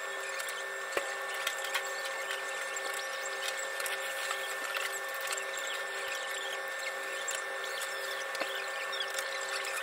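Ramen shop room sound: a steady machine hum with a low tone that pulses on and off in a regular rhythm, under scattered small clicks and clinks.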